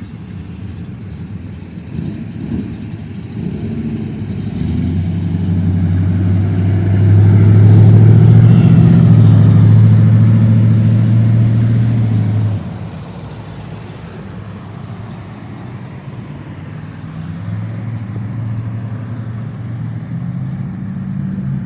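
Car engines in slow-moving traffic. One engine running at low revs grows louder as it comes close, peaks about halfway through, then drops away suddenly, leaving the quieter hum of other passing cars.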